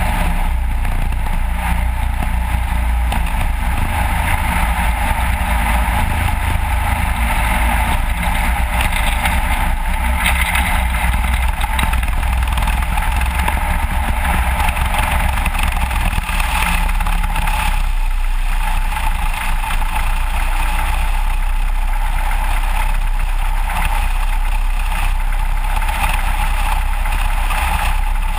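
Small aircraft's engine and propeller running steadily as the plane taxis across snow.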